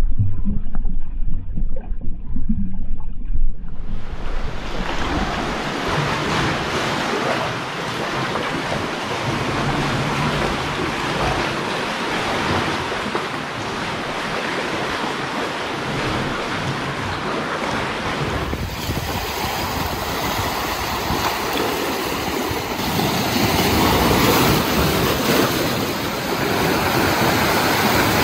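Muffled underwater rumble for the first few seconds, then water sloshing and lake waves washing and splashing against rocks, with wind buffeting the microphone.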